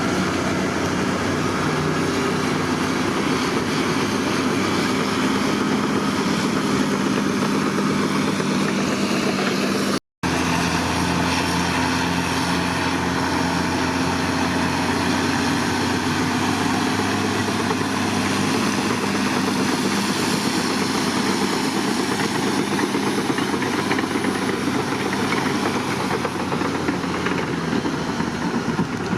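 Heavy diesel construction machine engine running steadily, with a brief dropout about ten seconds in.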